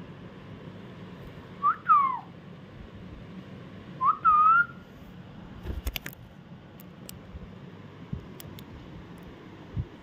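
Pet parrot whistling two short notes, the first gliding down and the second rising and then held briefly. A few light taps follow.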